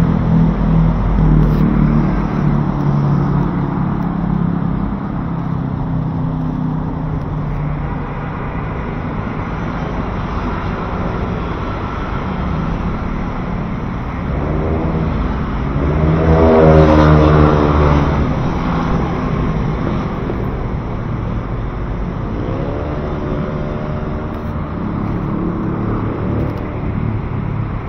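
Busy city-street traffic: vehicles passing one after another, their engines rising in pitch as they pull away, with the loudest passing about seventeen seconds in.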